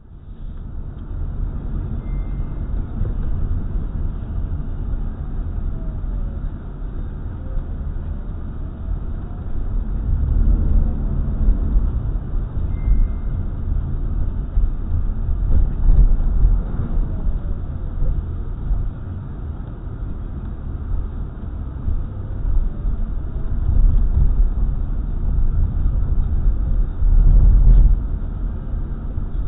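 Car interior noise heard through a dashcam: a steady low rumble of engine and tyres on the road while driving slowly in city traffic, swelling and easing as the car speeds up and slows.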